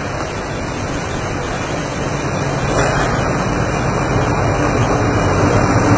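Diesel locomotive hauling a passenger train alongside a station platform, its engine rumble growing steadily louder as it approaches.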